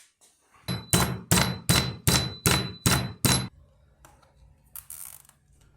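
Metal being struck about eight times in a steady rhythm, roughly three blows a second, each with a short metallic ring, like hammer blows on metal. A low steady hum follows.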